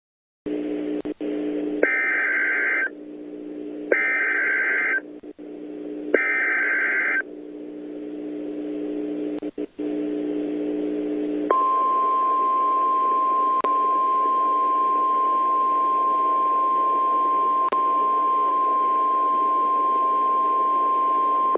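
Emergency Alert System SAME header: three one-second bursts of data tones about two seconds apart, followed about halfway through by the steady 1050 Hz National Weather Service attention tone, held for about ten seconds, all over a low steady hum. The sequence announces the broadcast tornado warning.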